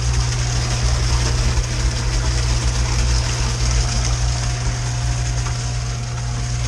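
Aqueous Technologies Eco-Recycler rinse-water recycler's recirculation pump running with a steady low hum and a steady high hiss; a faint thin whine joins it about four seconds in.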